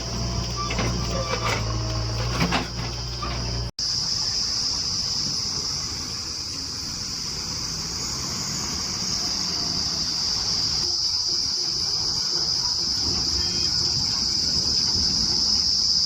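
A diesel engine runs steadily, with a few metallic clicks and knocks. About four seconds in, the sound cuts off abruptly. After that a loud, steady, high-pitched insect drone takes over, over a low rumble.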